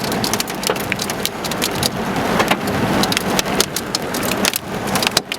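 Heavy rain from a supercell thunderstorm, a dense steady hiss broken by many sharp knocks of drops or stones striking.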